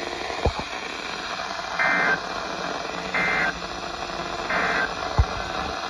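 Emergency Alert System SAME data tones over a hissing radio signal: three short, buzzy bursts, each about a third of a second long and about a second apart, the pattern of the end-of-message signal that closes an alert. Two brief low pops come through the static, one near the start and one near the end.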